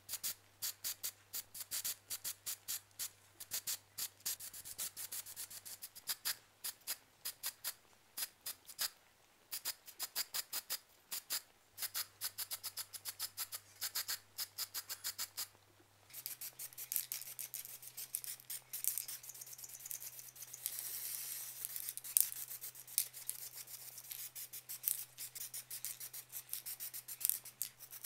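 Aerosol spray-paint can rattling in quick irregular clicks as it is shaken, then a steady hiss of spraying from a little past halfway, over quiet background music.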